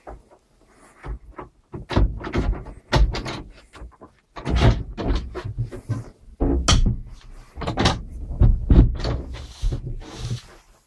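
Irregular close knocks, thumps and rubbing from a wooden cabin door being handled, starting about two seconds in and going on in an uneven run until near the end.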